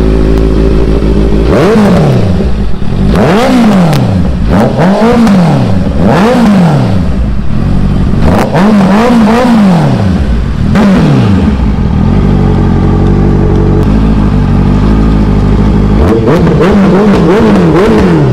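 Honda CBR650F's inline four-cylinder engine revved at a standstill: it idles, then comes a run of quick throttle blips, each rising and falling in about a second. It settles back to a steady idle for a few seconds, then a few more blips come near the end.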